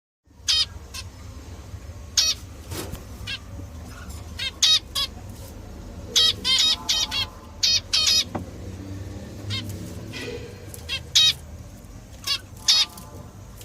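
Budgerigars calling in short, harsh squawks and chirps, one after another in scattered bursts, over a steady low hum.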